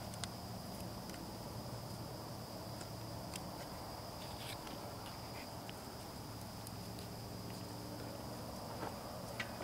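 Quiet background: a steady low hum and a steady high-pitched whine, with a few faint clicks.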